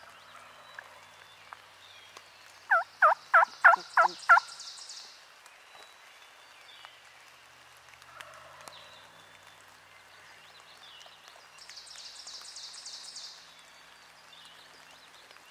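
A male wild turkey gobbles once about three seconds in: a quick rattle of about six falling notes. A small songbird's high, buzzy trill follows right after and comes again near the end.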